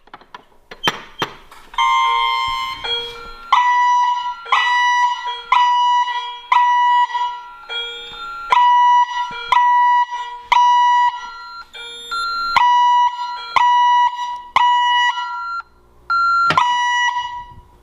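Honeywell fire alarm set off by a pull station. A few sharp clicks come as the station is pulled, then about two seconds in the alarm starts sounding a repeating electronic tone, about one pulse a second, with occasional higher notes.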